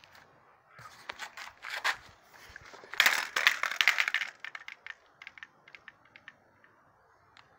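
Handling noise: rustling, scraping and clicking as the phone is moved and brushed in close against the motorcycle's frame. It is loudest about three to four and a half seconds in, then trails off into scattered light ticks.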